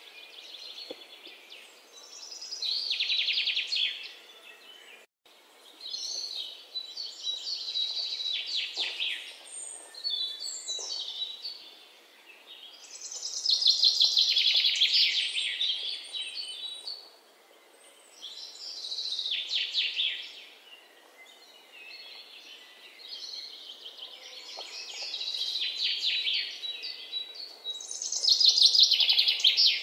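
Birds singing: phrases of quick, high chirps about two seconds long, repeating every few seconds with short quieter gaps between.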